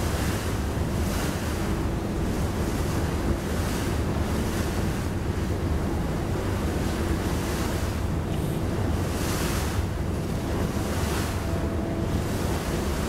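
Wind buffeting the microphone over open river water, with a steady low rumble underneath and hiss that swells and fades every second or so.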